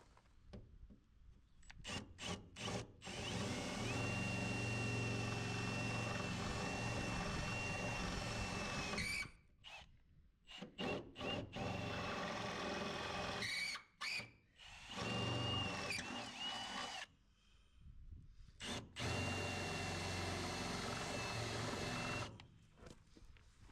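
Power drill boring out the old screw holes in a car bumper so riv nuts can be fitted: a few quick trigger blips, then several runs of several seconds each with a steady motor whine, stopping and starting between holes.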